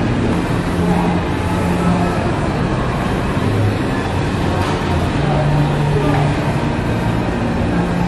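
Busy shop ambience: a steady din of distant voices and room noise.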